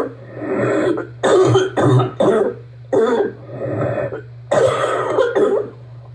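Deep barking cough: a person coughing in a run of harsh coughs, several separate fits with short gaps between, the last fit coming near the end. The cough is one of asthma and bronchitis.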